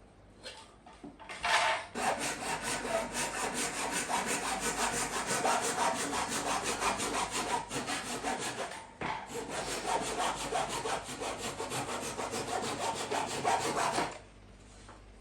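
Handsaw cutting through a wooden board in quick, even strokes, starting about a second and a half in, pausing briefly near the middle and stopping shortly before the end.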